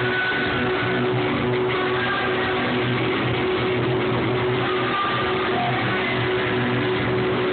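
Live band music at a concert, heard through a phone's microphone from the crowd: a dense, steady, loud mix with a held note running underneath.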